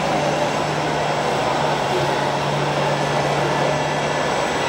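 Steady mechanical running noise with a low hum that breaks off briefly near the end.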